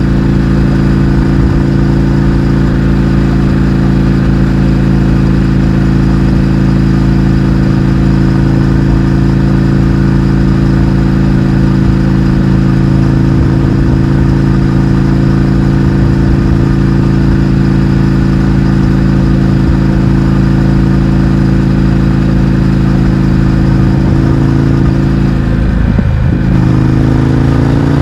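Indian FTR 1200's V-twin engine running at steady speed through a baffle-less Akrapovič exhaust while riding. Near the end the engine note drops and then climbs again.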